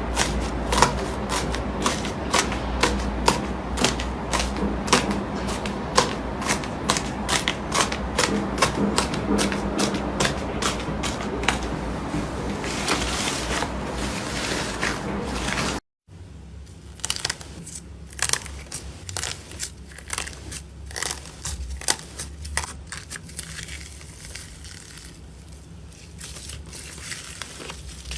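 Slime being squeezed and poked by hand, giving rapid sticky clicks and pops. After a cut about halfway, the clicks come quieter and more sparsely.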